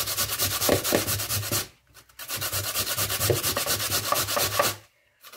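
Raw potato being grated by hand on a stainless-steel box grater, quick even scraping strokes, with a brief pause about two seconds in and another near the end.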